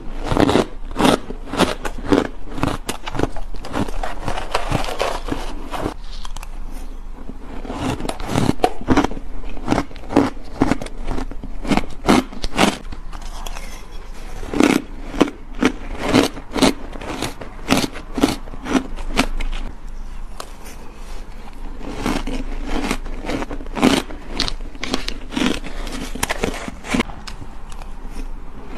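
Close-miked crunching and crackling of crumbly frozen ice being bitten and chewed, many sharp crunches a second, with a spoon scraping the bowl now and then.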